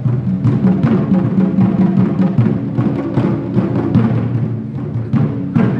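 Traditional Chinese ensemble music: drums beat a fast, dense rhythm over a plucked ruan, with one strong stroke near the end.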